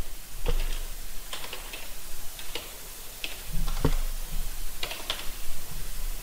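Computer keyboard keys clicking as a file name is typed, in short irregular runs of a few keystrokes with pauses between.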